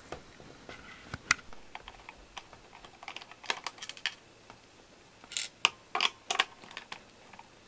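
A screwdriver turning screws out of the plastic case of a Brother FB-100 floppy disk drive: a run of irregular small clicks with a few short scrapes, fast-forwarded.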